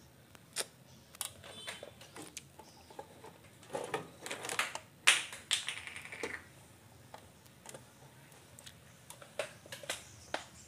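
Irregular clicks, taps and rustles of wires and a circuit board module being handled and fitted inside a mixer amplifier's metal chassis, with the loudest knock about five seconds in.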